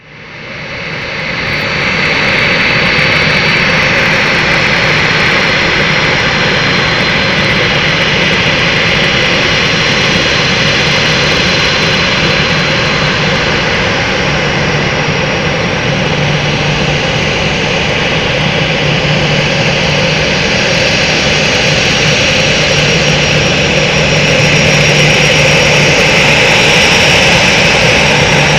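Airbus A319 jet engines running at taxi power: a steady rushing noise with a high, thin whine on top. It fades in over the first couple of seconds and grows a little louder near the end as the airliner taxis closer.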